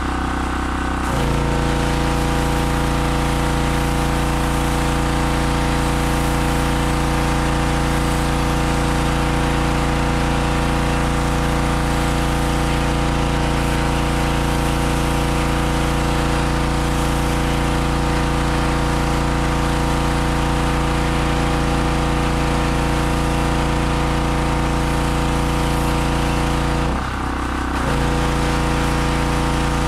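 Harbor Freight 2500 PSI pressure washer's 160cc gas engine running steadily. Its note changes about a second in and dips for about a second near the end, then picks up again.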